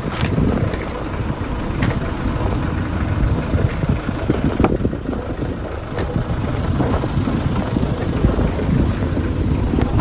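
Wind buffeting the microphone: a low, rumbling noise that keeps swelling and easing.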